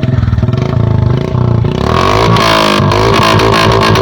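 Royal Enfield Bullet 350's single-cylinder engine running through a long Punjab-style aftermarket silencer. It starts with separate, evenly spaced exhaust beats, and about two seconds in the throttle is opened into a denser, continuous exhaust drone.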